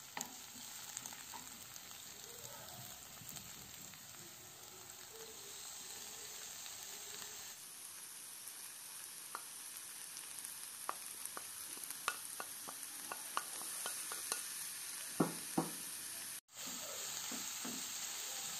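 Green onions and then grated carrots sizzling in olive oil in a frying pan, stirred with a wooden spatula. In the second half the spatula taps and scrapes against the pan in a run of sharp clicks.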